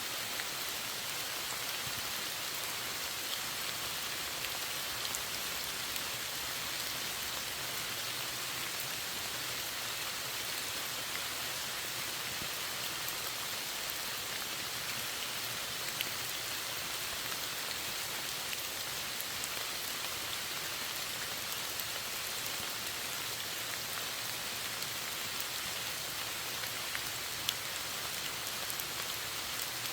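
Steady rainfall, an even hiss with now and then a single louder drop ticking, most clearly about halfway through and near the end.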